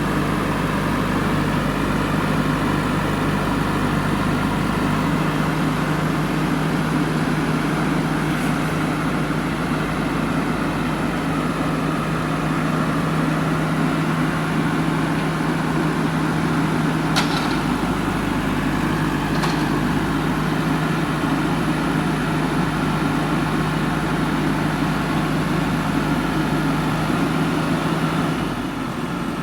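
Heavy diesel engine running steadily at a constant speed, with two sharp metallic clicks about two seconds apart past the middle; the engine sound drops lower shortly before the end.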